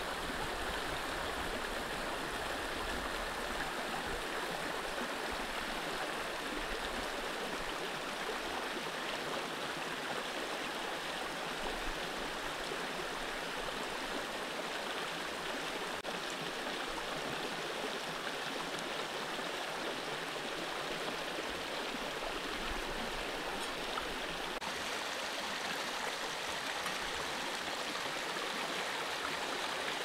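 Shallow stream rushing over rocks: a steady, even rush of water.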